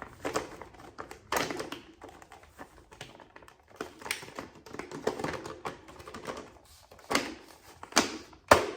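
Hard plastic parts of a Dyson V6 cyclone and dust bin being handled and fitted back together: irregular clicks and knocks, the sharpest a little after a second in and several close together near the end.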